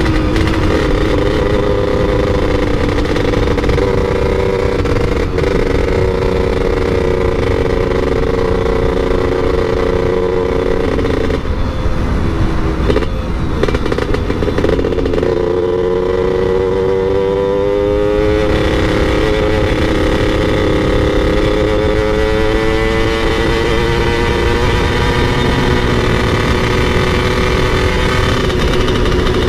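Motorcycle engine running under way, with wind noise underneath. About twelve seconds in the revs drop briefly, then climb steadily for several seconds before settling again.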